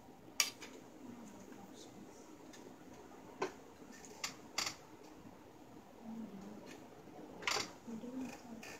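Scattered sharp clicks and taps of ring light and tripod stand parts being handled and fitted together. There are about five clicks, the loudest right at the start.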